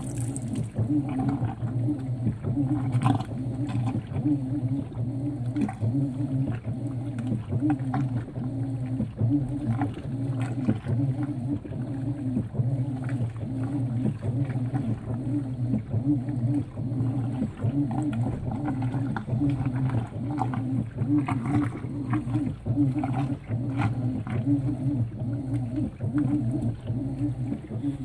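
Brastemp Vantage high-efficiency top-load washer running its wash cycle with a load of towels: a low motor hum that swells and dips in a steady rhythm as the load is moved, with water splashing onto the towels.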